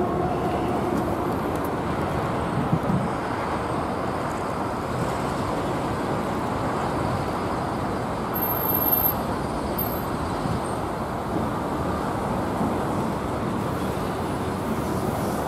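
Steady road traffic noise, an even hum with no distinct events.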